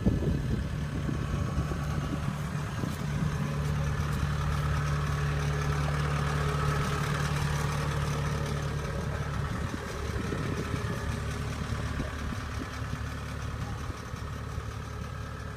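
Diesel engine of a tracked Kubota rice combine harvester running steadily as the machine crawls, with a single knock at the start. The engine's steady hum turns rougher and a little quieter about ten seconds in.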